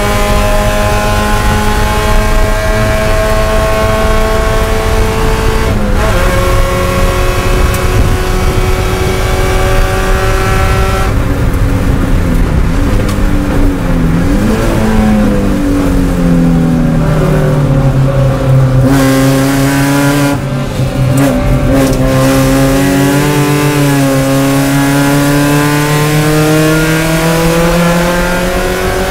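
Spec Miata's four-cylinder engine heard from inside the cockpit at racing speed. It runs hard at high revs with a quick shift about six seconds in. Around the middle the note drops and wavers as the car brakes and downshifts, then it pulls again with the pitch rising steadily through the last several seconds.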